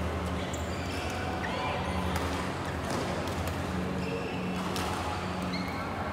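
Badminton play on several courts in a large hall: rackets smacking shuttlecocks in scattered sharp hits and shoes squeaking briefly on the court mats, over background voices and a steady low hum.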